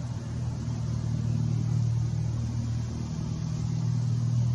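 Steady low motor hum holding one pitch, swelling and easing slightly in loudness.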